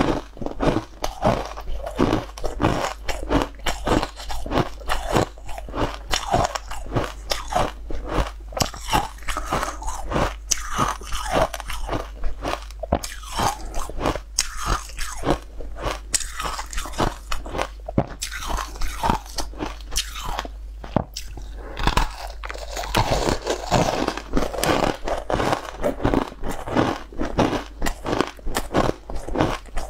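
Close-up crunching and chewing of frozen green-tinted ice, a rapid run of crisp crunches, several a second, bite after bite.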